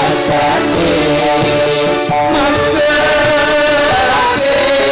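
Music: a live band playing an Islamic devotional song (sholawat). A singer's voice goes over keyboard, electric guitars and hand drums with a steady beat, and holds a long note near the end.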